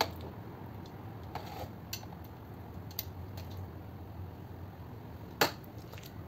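Wooden skewers of marinated chicken and a ceramic plate being handled, giving a few light clicks and taps with one sharper click about five seconds in, over a low steady hum.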